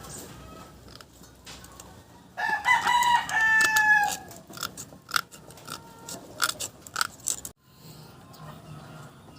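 A rooster crowing once, a long pitched call that falls slightly at the end, followed by a run of sharp taps about two a second.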